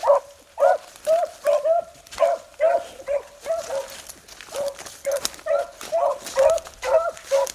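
Beagle hounds baying on a rabbit's scent line: a steady run of short, high yelps, about two or three a second, with a brief lull just before the middle. The hounds are giving tongue while working the track.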